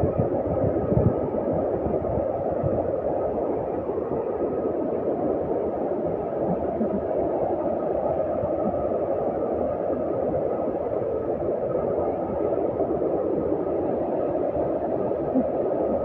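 Steady rush of a fast, rocky river in white water, with a couple of dull low thumps about a second in.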